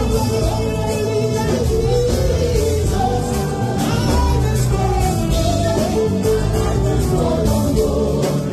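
Loud music with a singing voice.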